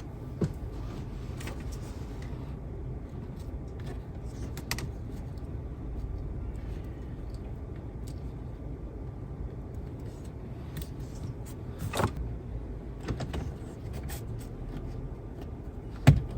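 Steady low hum inside a car cabin, with scattered small clicks and knocks of hands handling parts. The sharpest knock comes near the end.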